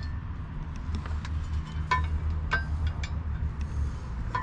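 Metal mounting hardware clinking and tapping as it is handled and fitted under the vehicle's front end: a few sharp clicks, two of them ringing briefly about halfway through, over a steady low hum.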